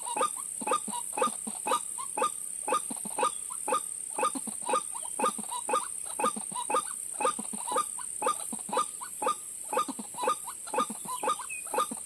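White-breasted waterhen calls, short harsh notes repeated steadily at about two to three a second: the ruak-ruak lure call used to draw the birds to the snare.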